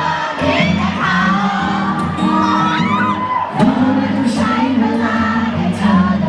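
Live pop music at the start of a song, with an audience screaming and cheering over it in short, high, sliding shrieks.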